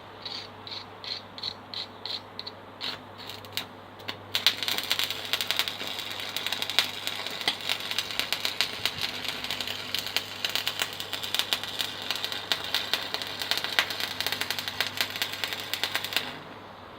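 A stick (MMA) welding arc with a flux-coated electrode. For the first few seconds it spits in short separate crackles, about three a second, as the arc catches and breaks. About four seconds in it settles into a steady, dense crackle, which cuts off about a second before the end. The welder's current is set a little high, which the welder blames for a messy weld.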